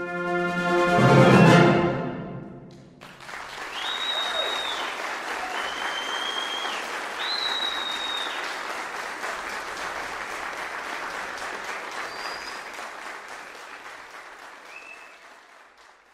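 A concert band's final chord, backed by timpani, swells and is cut off sharply. The audience then breaks into applause with several shrill whistles, and the applause fades out near the end.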